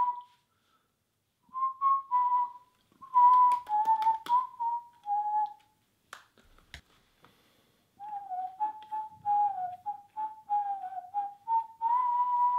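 A person whistling a tune in short, gliding notes, with two pauses. In the second pause, about six seconds in, there are a couple of faint clicks.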